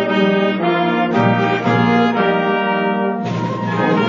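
Live school band with prominent brass, trombones and trumpets, playing held chords that change every half second or so.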